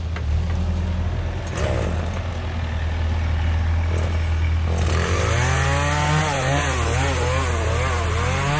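A steady low engine hum, then about five seconds in a chainsaw starts running, its pitch rising and falling as it works.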